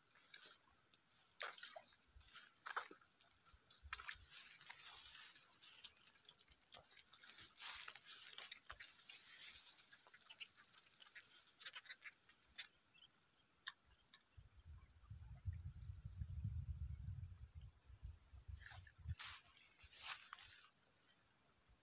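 Insects chirping in a faint, steady high drone, with a second insect call pulsing a few times a second. Scattered faint clicks and rustles, and a low rumble for a few seconds after the middle.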